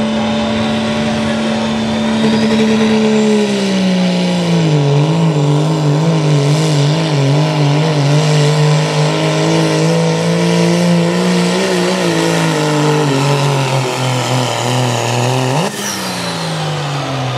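Turbo-diesel Dodge Ram pickup engine at full throttle pulling a weight-transfer sled. The engine note drops about four seconds in as the load builds, wavers, then sinks steadily as the truck is pulled down. Near the end the pitch flares up sharply and falls back as the engine is let off, and the sound drops.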